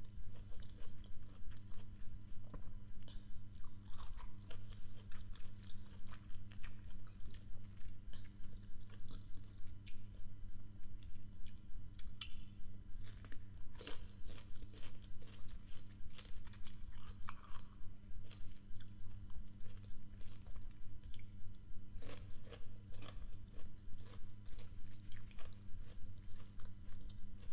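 Close-miked chewing of crisp raw apple pieces, with wet crunches repeating in a quick, steady rhythm several times a second. A steady low hum sits underneath.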